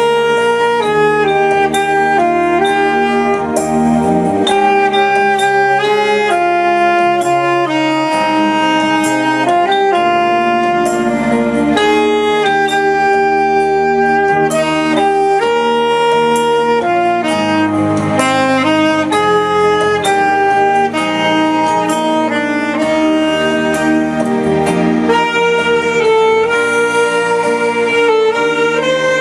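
Music: a saxophone playing a melody over a held accompaniment.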